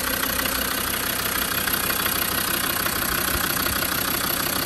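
Land Rover Defender's Td5 2.5-litre five-cylinder turbodiesel idling steadily, heard close up in the open engine bay. It is running evenly and happily, with no misfiring.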